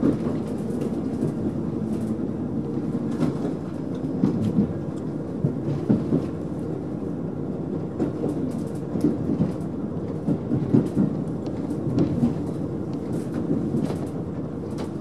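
Running sound inside a KiHa 40 diesel railcar at about 33 km/h, easing slightly: a steady low rumble of the diesel engine and running gear, with the wheels clicking over rail joints every second or so.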